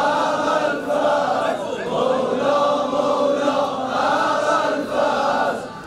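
A large crowd of male mourners chanting a noha lament in unison, with a brief break just before the end.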